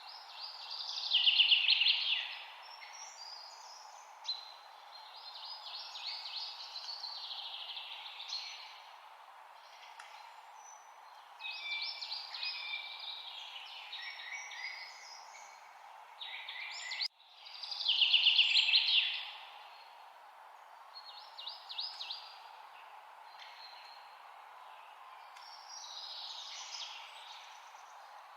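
A songbird singing in varied phrases of one to three seconds, separated by short pauses, the loudest phrases about a second in and just past the middle. A steady background hiss runs under the song, and the sound cuts out for a moment just before the second loud phrase.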